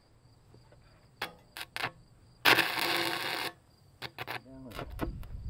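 A stick-welding rod is tapped and scratched against the steel in a few sharp clicks, then strikes a sputtering arc that crackles for about a second before going out, and more taps follow. The rod is struggling to strike and keep burning, and the welder doesn't like that rod.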